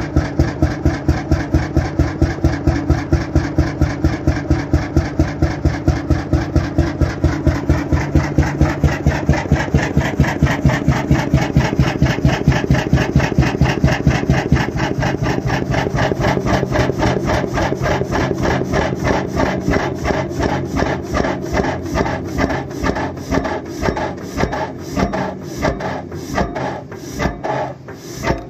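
Krimo single-cylinder 21.9-litre hot bulb oil engine running steadily at slow speed, a heavy regular beat about five times a second. About halfway through, the sound turns to a close, rattling clatter from the fuel pump and its lever linkage, keeping the same beat.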